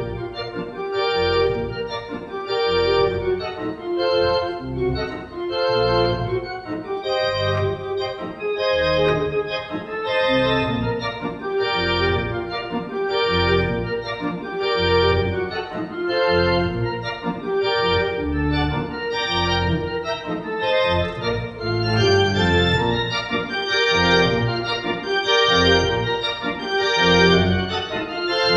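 Church organ playing a ragtime piece arranged from piano, with a regular beat of low notes under a busy melody.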